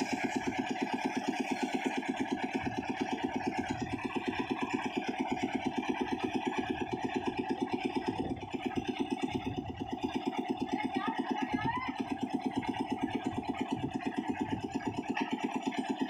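Engine of a site concrete mixer with lift hoist running steadily, with a fast, even pulsing beat, while the drum turns.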